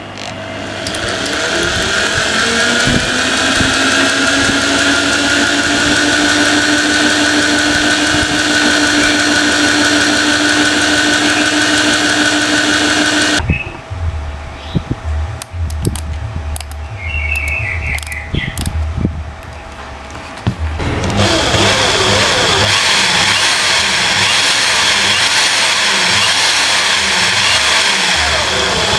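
Corded electric drill, rated 500 W and 2000 RPM, spinning a cardboard scale-model truck rear axle through its bevel gears, rising in pitch as it winds up to speed and then running steadily. About halfway through it stops, and there are clicks and knocks as its switches are handled. Then it runs the axle again with a higher-pitched whine.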